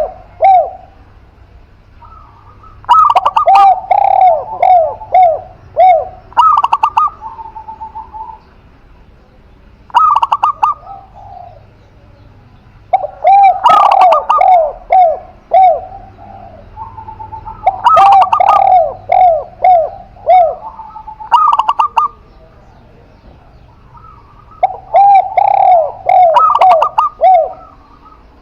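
A spotted dove and a zebra dove cooing against each other, in repeated phrases every few seconds. Each phrase is a quick run of short, arching coo notes, with higher and lower notes overlapping at times.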